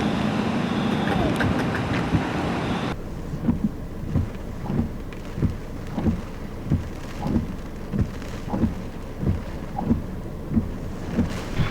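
Storm noise of wind and rain, cut off sharply about three seconds in. Then a quieter, steady rain with a regular low thump about every two-thirds of a second.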